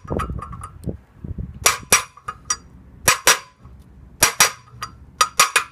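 Hammer striking a steel socket held against a new wheel bearing outer race in a VW T3 Vanagon brake disc hub: sharp metallic taps, mostly in quick pairs about once a second, each with a brief ring. These are extra taps to make sure the already-seated race is fully bottomed out.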